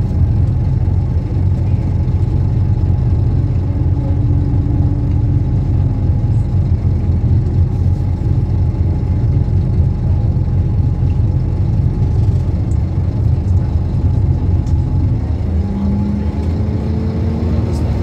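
Scania K230UB city bus's five-cylinder diesel engine running steadily with a deep drone, with a faint rising whine in the last few seconds as it picks up speed.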